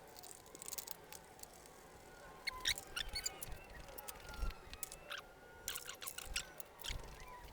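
Scattered light clicks, taps and knocks of motorcycle parts and tools being handled and fitted during reassembly.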